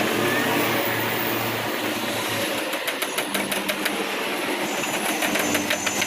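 Woodworking router machine running steadily with a constant hum, and a quick run of sharp clicks in the second half.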